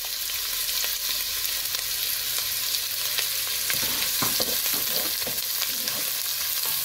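Sliced red onion sizzling in hot oil in a nonstick pot, a steady hiss as it starts to sauté. From about four seconds in, a wooden spatula stirs and scrapes the onion around the pot.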